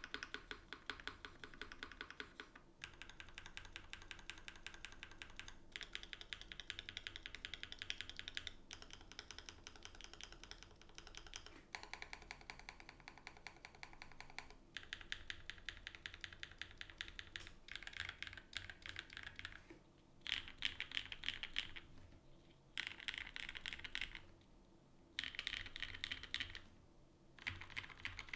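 Typing on an Eniigma Vertigo gasket-mount mechanical keyboard with an aluminum plate, lubed and filmed Frankenswitches (H1 bottom housings, Cherry top housings, Durock POM stems) and GMK keycaps: fast runs of keystrokes broken by short pauses, becoming shorter bursts with longer gaps in the last third.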